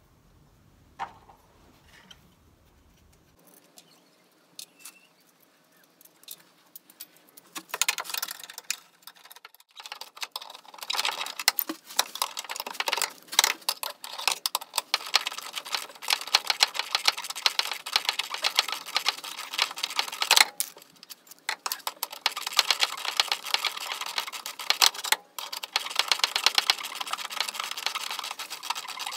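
Rapid metallic clicking and rattling of hand tools: a few scattered clicks at first, then nearly continuous fast clicking from about a quarter of the way in, broken by a few short pauses.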